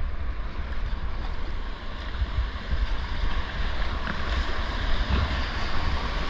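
Rushing whitewater of a creek rapid, heard as a steady hiss of water, with a heavy, fluctuating low rumble of wind and water buffeting the action camera's microphone.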